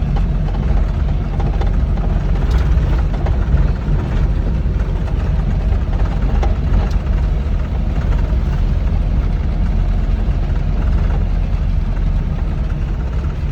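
Rice combine harvester's engine running, a loud, steady low drone.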